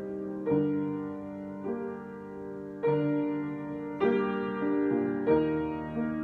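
Slow improvised piano playing: sustained chords struck about once a second, each ringing and fading before the next.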